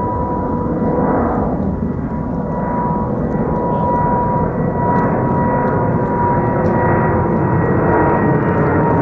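Boeing 777-300ER's GE90-115B jet engines running: a steady whine over a deep rumble, slowly getting louder.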